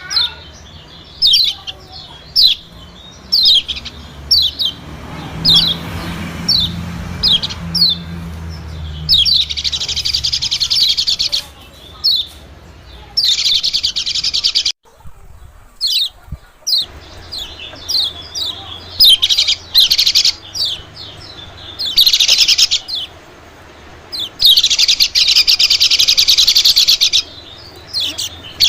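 White-eye (pleci) lure call: a run of short, sharp chirps that drop in pitch, then long, fast, high chattering trills of one to three seconds each, repeated with short pauses. It is the sound used to lure small birds, white-eyes above all.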